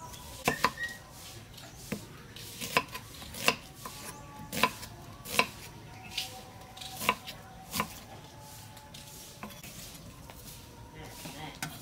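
Kitchen knife slicing an onion on a thick round wooden chopping block: about ten sharp, irregular knocks of the blade on the wood over the first eight seconds, then only a few faint taps.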